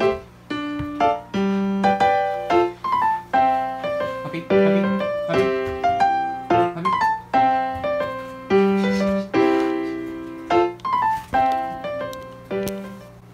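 Background music: a light piano tune, note after note struck and dying away, fading out near the end.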